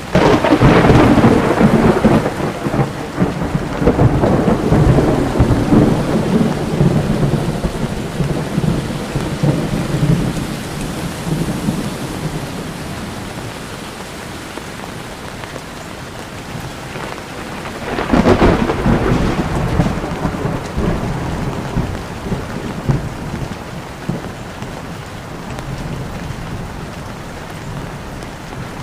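Heavy rain falling steadily, with two claps of thunder: one right at the start that rumbles away over about ten seconds, and another about eighteen seconds in.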